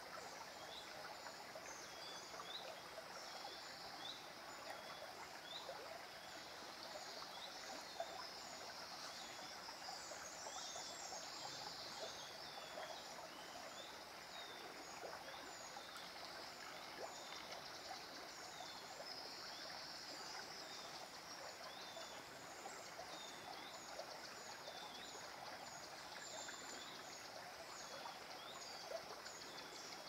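Shallow stream rushing over rocks in a steady wash. A small bird's short high chirps repeat about twice a second throughout.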